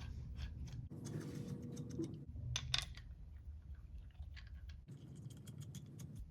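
Light clicks, taps and scrapes of steel vise parts being handled as a quick-change master jaw is fitted onto a machine vise, with a few sharper clicks about two and a half seconds in.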